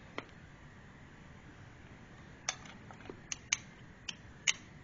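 A distributor cap and its HT leads being handled by hand on a Land Rover Series I engine: a handful of short, sharp plastic clicks and taps, mostly in the second half.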